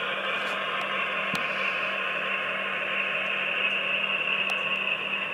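Diesel engine sound of a QSI sound decoder in an HO-scale Proto 2000 Alco RS-27 model locomotive, played through the model's small speaker as it runs: a steady hissy engine noise with a low hum underneath.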